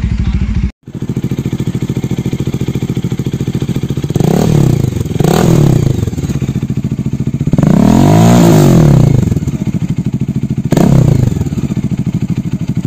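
Bajaj Dominar 400's single-cylinder engine idling through an aftermarket MIVV-branded slip-on silencer and revved four times, the third rev held longest and loudest. The sound drops out briefly just under a second in, where one exhaust's clip gives way to the next.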